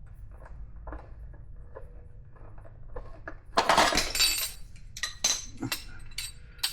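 Metal clinks and clatter as the motorcycle's rear brake caliper and its bolts are handled and worked free: light, scattered ticks at first, then a loud burst of knocks about three and a half seconds in and a few more a second later.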